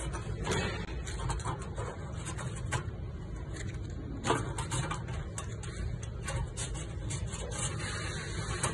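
Light clicks and scrapes of a metal door lock mechanism being handled as its cylinder is turned, loudest about four seconds in, over a steady low hum.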